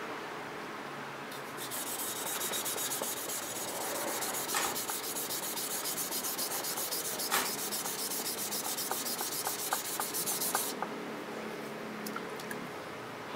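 Tosa-style kitchen knife blade stroked rapidly back and forth on a wet whetstone, a steady rhythmic scraping that stops near the end.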